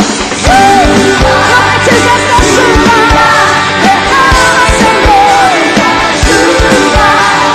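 Live worship band with electric guitars, bass and a drum kit playing loudly on a steady drum beat, with a woman singing the lead melody.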